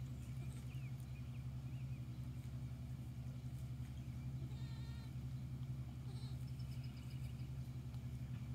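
A goat gives one short, wavering bleat about halfway through, over a steady low mechanical hum, with a few small bird chirps.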